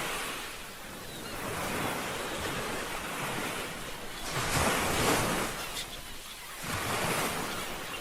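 Ocean waves breaking and washing up the shore in repeated swells that rise and fade, the loudest about five seconds in and another about seven seconds in.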